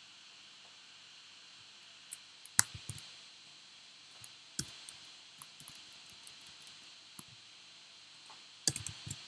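Scattered clicks and keystrokes from a computer keyboard and mouse during code editing, in small clusters: the loudest about two and a half seconds in, and another quick cluster near the end. A faint steady hiss runs underneath.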